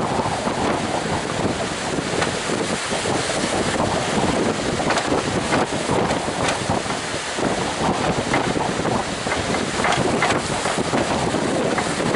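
Strong wind blowing across the microphone in gusts, over the steady noise of heavy surf.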